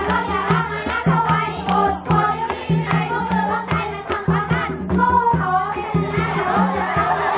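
Music with a steady drum beat and singing voices.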